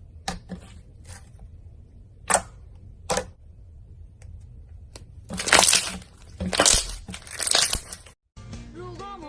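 Slime being pressed and squeezed, giving a few short, sharp crackles and pops, then three longer, louder crunchy crackling bursts. Background music starts near the end.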